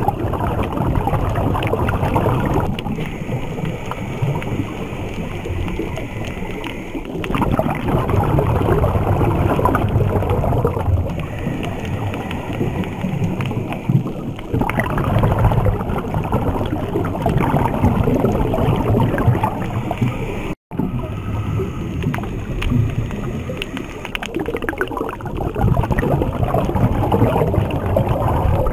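Muffled underwater rushing and gurgling, typical of a diver breathing through a regulator and exhaling bubbles. It swells and eases in cycles of a few seconds, and it cuts out for an instant about two-thirds of the way through.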